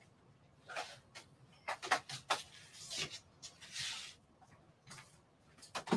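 Small objects being handled at a tabletop: a scatter of light clicks, taps and short scraping rustles.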